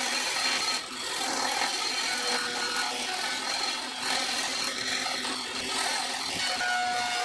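A power tool working wood: a steady rasping noise with faint whining tones, dipping briefly about a second in.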